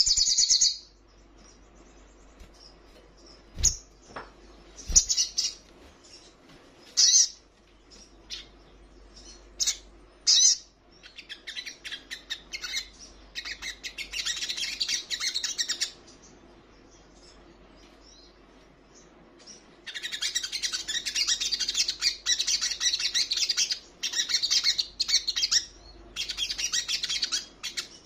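Olive-backed sunbird singing: short high-pitched phrases at first, then fast, high twittering song that breaks off for a few seconds and resumes near-continuously in the last third. Two low thumps come about four and five seconds in.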